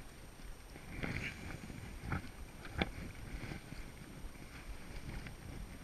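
Water slapping against a small aluminium boat's hull, with wind on the microphone. A few sharp knocks from the boat come about two and three seconds in.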